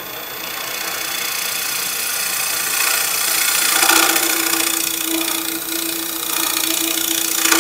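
Negative rake scraper cutting the inside of a wet-wood bowl turning on a lathe: a steady scraping hiss of the edge peeling off shavings, which swells over the first second. A steady hum joins about halfway through.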